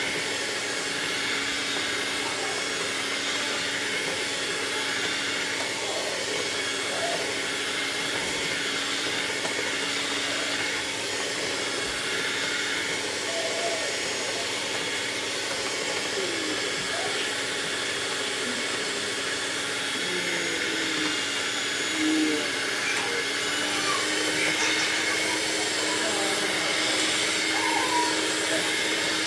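Black+Decker electric hand mixer running steadily, its beaters whirring through cream cheese batter for a cheesecake filling.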